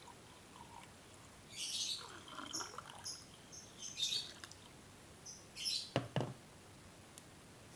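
Iced tea being poured into a glass in short spells, with a clunk about six seconds in, and birds chirping in the background.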